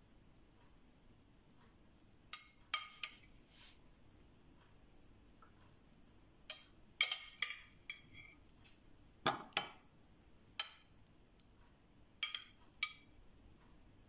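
Metal spoon clinking and scraping against a glass bowl as beetroot salad is scooped out: about a dozen short, sharp clinks, some in quick pairs, with pauses between.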